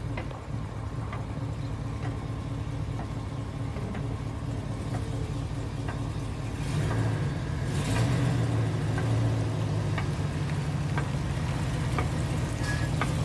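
A motor vehicle's engine running steadily, growing louder about halfway through, with a short hiss just after and a few small clicks.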